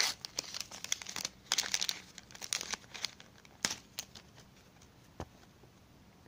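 Panini sticker pack wrapper crinkling and tearing as it is opened, in quick crackly bursts that die away about two-thirds of the way through.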